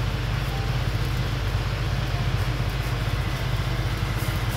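A steady low mechanical hum under an even rushing noise, like a running fan or motor, holding level without a break.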